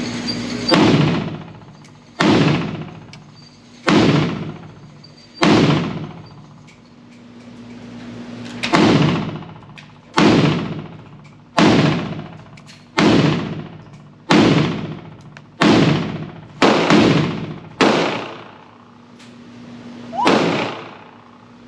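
Pioneer Arms Hellpup AK-pattern pistol in 7.62×39 firing about thirteen single shots, roughly one every second and a half, with a pause of about three seconds after the fourth. Each report echoes and dies away over about a second.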